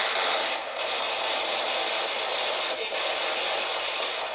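Steady radio static hiss from a ghost-hunting spirit box sweeping through stations, dropping out briefly twice.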